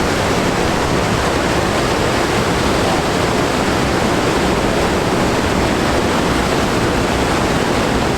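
Ocean surf: waves breaking and whitewater rushing in a steady, loud, unbroken wash of noise.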